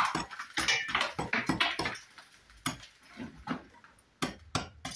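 Steel pointing trowel scraping and tapping on brickwork, packing lime mortar around a brick slip. A quick run of strokes, about four a second, turns fainter after about two seconds, with two sharp taps near the end.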